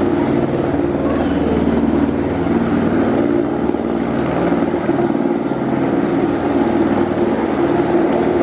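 Police helicopter flying, a steady drone of rotor and engine with rapid blade chop that holds without a break.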